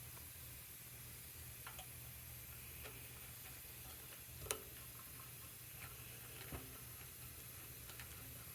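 Scattered light clicks and taps, with one sharper click about halfway through, over a low steady hum.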